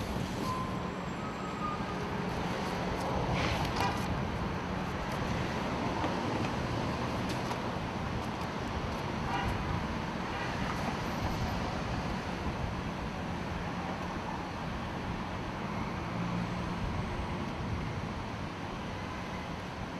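Steady city street traffic noise from passing cars, with a few brief knocks about three to four seconds in and again around ten seconds.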